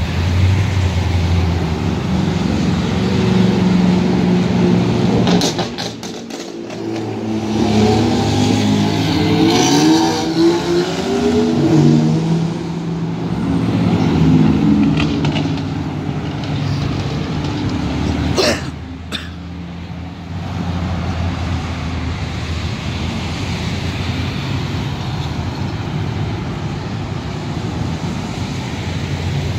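Classic cars' engines idling and pulling away at close range, including a C3 Corvette's V8. About eight to twelve seconds in, an engine revs up and down several times. A little past halfway there is a single sharp click.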